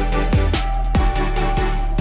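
Electronic background music with a steady beat and falling bass sweeps about twice a second.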